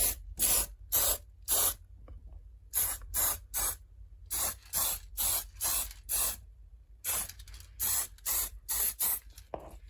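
Spray paint hissing out in short bursts, about two to three a second, in three runs with brief pauses between them, laying down a first coat.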